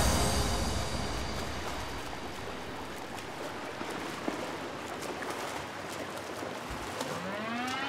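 Steady rush and lapping of pool water at a rooftop infinity pool, as music fades out at the start. About a second before the end a rising tone with several overtones sweeps in.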